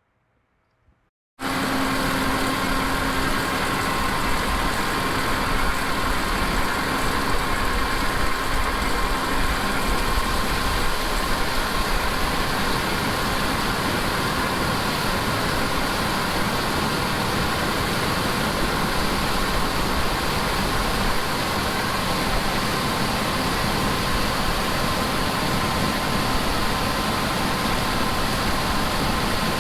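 Tractor engine running at a steady speed, a constant drone that starts abruptly about a second and a half in after a brief silence.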